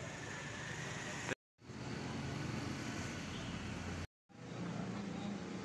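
Steady background hum of distant road traffic, with no distinct tool or metal sounds. It drops out completely twice for a moment.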